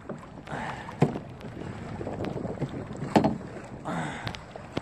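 Choppy water sloshing against a canoe, with wind on the microphone. Two sharp knocks sound, about a second in and again a little past three seconds.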